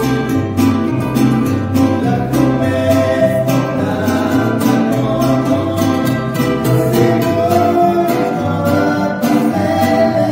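Acoustic guitars of several sizes, including a large bass guitar, strummed and plucked in a steady rhythm, with a man singing over them from about three seconds in.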